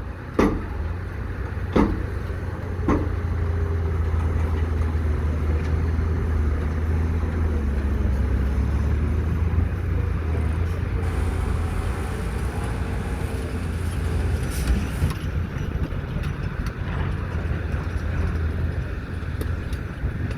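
Steady low, engine-like rumble of working machinery, with three sharp clicks in the first three seconds.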